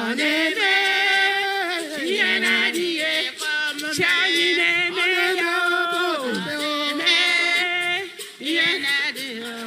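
Singing: a voice holding long notes and sliding up and down between them, with a brief dip about eight seconds in.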